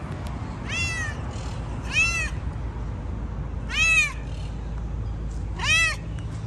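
Tabby-and-white cat meowing four times, about every one and a half to two seconds, each meow rising then falling in pitch.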